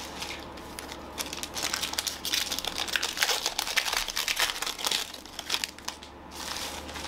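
Foil wrapper of a Donruss football card pack being torn open and crinkled by hand: a dense crackling rustle, starting about a second in and lasting about five seconds, then softer rustling as the cards are slid out.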